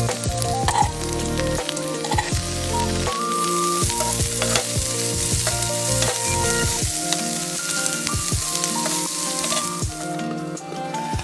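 Meat sizzling as it fries, a steady hiss with scattered crackles, under background music with a steady bass line.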